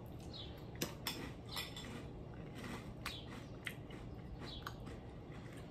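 A mouthful of crispy oatmeal-puff cereal with almond milk being chewed: faint, short crunches at uneven intervals.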